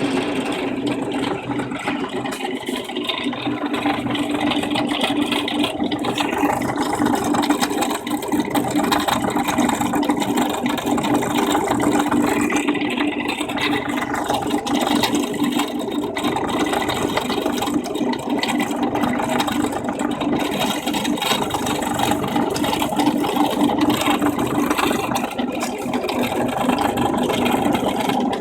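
Parkside PTBM 500 A1 bench drill press running, with a steady hum, while drilling into a pine batten.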